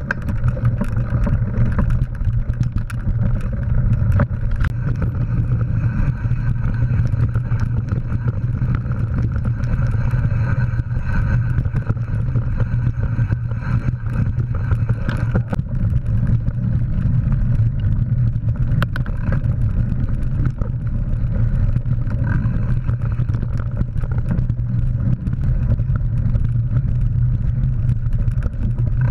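Mountain bike riding over a dirt forest trail, heard through a GoPro Hero3 Black camera riding along with it: a steady low rumble of tyres and wind noise, with many small clicks and rattles from bumps.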